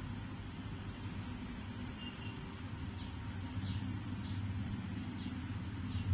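Faint background ambience: a steady high-pitched whine over a low hum, joined about halfway through by a run of short, falling chirps, roughly two a second.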